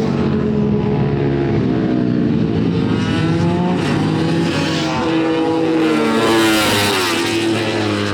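Honda six-cylinder four-stroke Grand Prix racing motorcycle engine revving hard, its pitch rising and falling as it accelerates and changes gear. It is loudest about six and a half seconds in.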